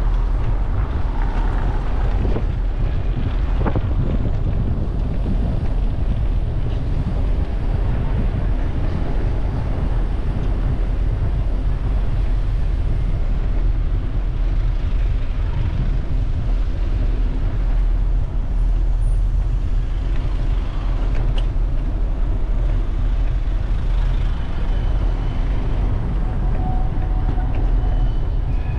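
City street traffic heard from a moving bicycle: a steady, loud low rumble with no distinct events.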